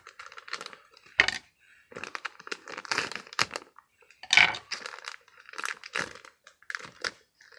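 Plastic packaging crinkling and tearing as it is opened by hand, in irregular bursts with a few sharper crackles, the loudest about one second and four and a half seconds in.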